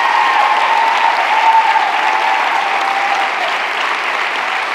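Theatre audience applauding, the clapping slowly easing off toward the end.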